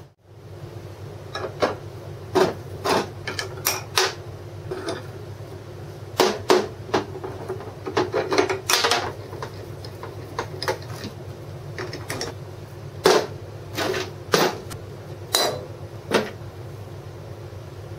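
Irregular sharp clicks and knocks of a socket wrench turning the nut on a stacked-plywood sanding drum's threaded spindle, and of the wooden drums and metal parts being handled, over a steady low hum.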